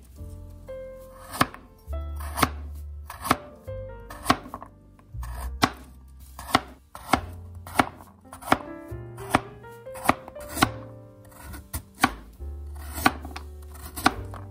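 Chef's knife slicing a raw carrot into rounds on a plastic cutting board: a sharp chop about one to two times a second, each blade striking the board. Soft background music with low bass notes runs underneath.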